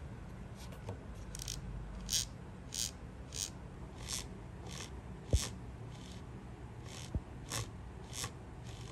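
A run of short scraping strokes, about three every two seconds, with a couple of sharp knocks in the middle, over a low steady hum.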